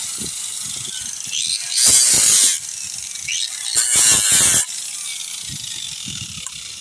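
Angle grinder with a sanding disc running, pressed twice against a boat's fiberglass hull bottom to grind out a void in the laminate. Each contact is a short, loud grinding burst over the steady whine of the spinning disc, which fades slowly near the end.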